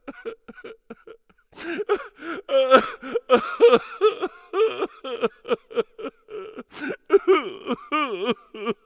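Whoosh-down flutter sound effect: a rapid, stuttering run of short pitched bursts that bend up and down in pitch, thinner about a second in, with falling sweeps near the end.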